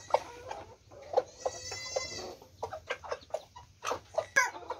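Chickens clucking: a rooster's short, repeated food-call clucks calling the hen to feed, with one longer, higher drawn-out call about a second and a half in.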